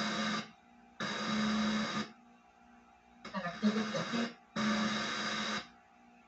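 FM radio of a CH-813 portable Bluetooth party speaker auto-scanning and storing stations. It plays four roughly one-second snippets of station audio, cut by short near-silent gaps as the tuner steps from one station to the next.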